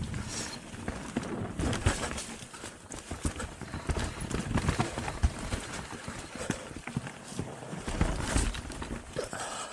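Mountain bike rolling over a rough dirt trail: an irregular clatter of knocks and rattles from the tyres and frame hitting bumps, over a low rumble.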